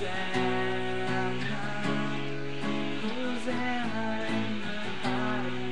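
Acoustic guitar strummed in chords, with a man singing over it in the second half.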